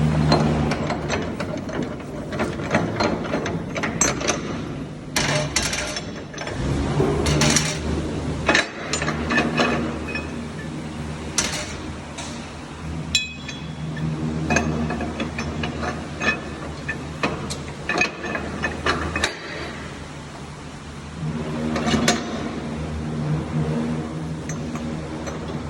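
Mechanical repair work on metal truck parts: ratchet clicks and metal knocks and clinks, scattered irregularly, over a low hum that comes and goes.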